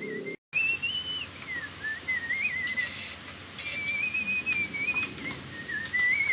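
A person whistling a wandering tune, holding notes and sliding between them, with a few light clicks and taps.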